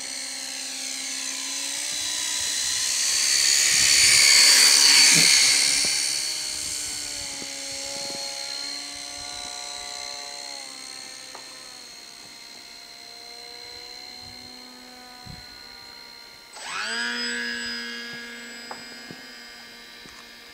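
Twin motors and propellers of a radio-controlled model PBY Catalina whining in flight. The sound swells as the plane passes close about four seconds in, its pitch dropping as it goes by, then fades with distance. Near the end the whine jumps up sharply in loudness and pitch as the throttle is opened.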